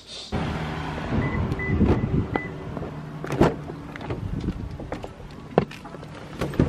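Someone climbing into a car through its open door: rustling and handling noise, three short electronic beeps from the car's chime about a second in, and several sharp clicks and knocks from the door and seat, the loudest about halfway through.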